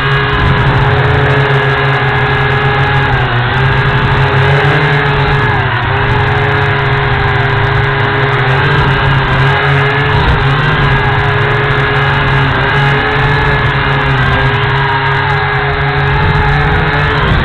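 A small quadcopter's motors and propellers whining steadily, heard through its onboard camera. The pitch sags and recovers briefly every few seconds as the throttle changes.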